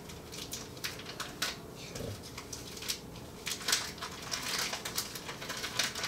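Clear plastic shrink wrap crinkling and crackling as it is peeled off a Blu-ray box set, in irregular crackles that grow busier from about halfway through.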